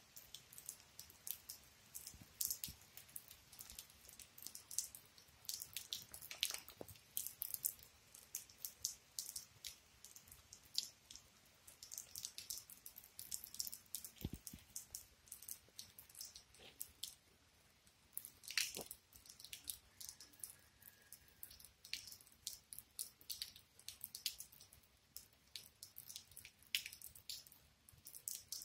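Rainwater dripping and splashing onto wet ground and puddles: faint, irregular light ticks, several a second.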